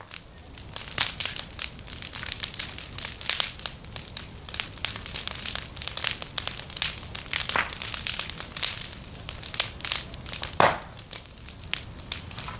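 Large bonfire crackling, with irregular sharp pops; the loudest pop comes about ten and a half seconds in.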